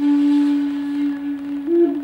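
Shakuhachi bamboo flute holding one long low note, stepping briefly up to a higher note near the end and dropping back.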